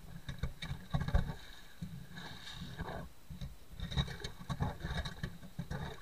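Hand ice auger's steel cutting blades biting into lake ice: uneven crunching and scraping with many short sharp clicks as the auger is turned, the loudest crack about a second in.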